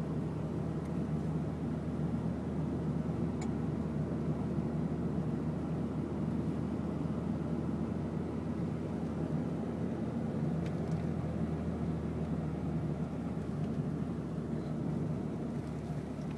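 Car driving at a steady speed, heard from inside the cabin: a steady low drone of engine and tyres on the road.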